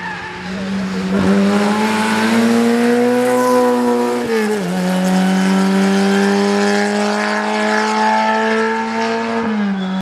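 Skoda 130 rally car's rear-mounted four-cylinder engine revving hard as it drives through a bend. The pitch climbs, dips sharply about four and a half seconds in, then holds high and steady before falling off near the end.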